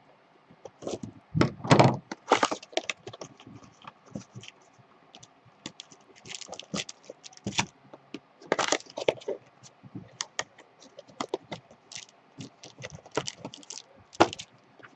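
Trading card boxes and packs being opened and handled: an irregular run of crackles, rips and sharp clicks of cardboard and wrapper.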